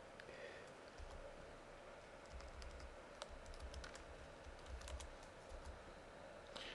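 Faint typing on a computer keyboard: a quick, uneven run of key clicks, mostly through the middle, as a web address is typed.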